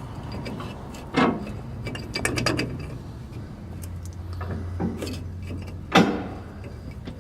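Metal tools and parts knocking and clicking during work on a Model A Ford transmission: two sharp knocks, one about a second in and one near the end, with a quick run of clicks between and a low hum in the middle.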